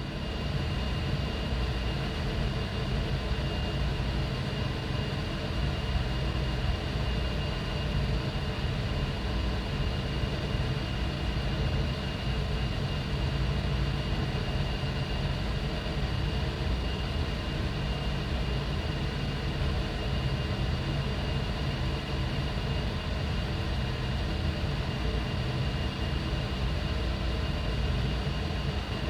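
Ventilation air duct running: a steady low rumble of air moving through the ductwork, with a hiss and a thin, constant whine high above it. It holds unchanged without a break.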